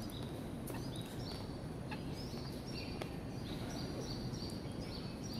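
Small birds chirping, short high notes repeated again and again, over a steady low hum of outdoor background noise, with a few light clicks.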